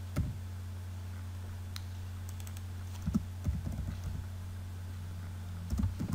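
Computer keyboard being typed on in short groups of keystrokes: a few just after the start, a cluster around three to four seconds in, and another near the end, over a steady low hum.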